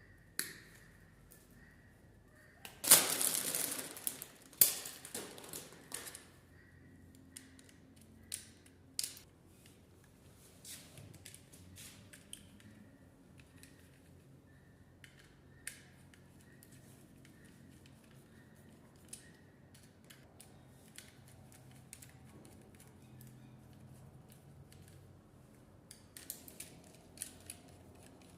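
Hand tools and wires being worked while wiring a double socket: a harsh scrape or cut about three seconds in, then scattered sharp clicks and light taps, with a cluster of clicks near the end.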